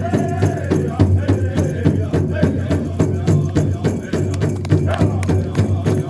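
Native American drum group's song for a hoop dance: singers' voices over a steady, fast beat on a large drum, with rattling percussion.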